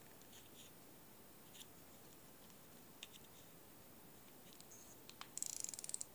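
A vintage Edgar Sealey Flocast fixed spool reel (a Young's Ambidex variant) being handled, with a few faint clicks from the spool and bail. Near the end comes a short, fast run of mechanical clicks from the reel's mechanism as it is worked.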